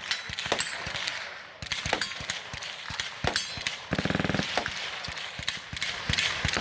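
Gunfire on a busy shooting range: sharp cracks at irregular intervals, with a short rapid rattle about half a second long near the middle.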